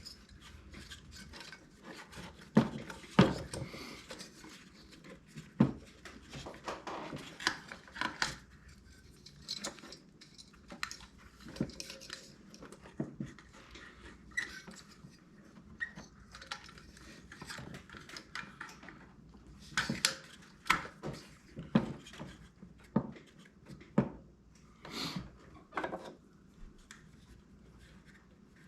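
Irregular clinks and knocks of hand tools and small metal parts being handled while a diesel air heater is worked on, with a few louder knocks among them.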